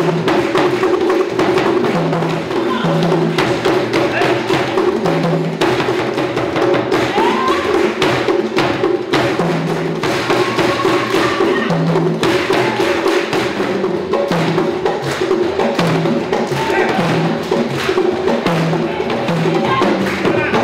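An ensemble of African hand drums, djembe-style and tall drums, playing a steady, driving rhythm for dance, with deep bass strokes recurring under sharper slaps.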